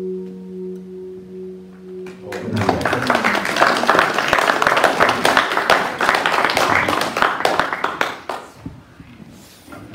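The final chord of a hollow-body electric guitar rings out through a small amplifier and is cut off about two seconds in. The audience then breaks into applause, which dies away near the end.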